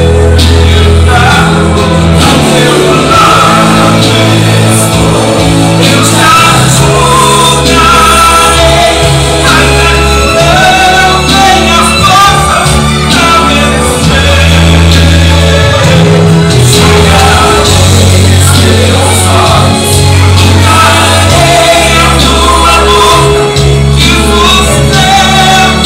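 Loud live music: a singer performing over a band with a steady, prominent bass line.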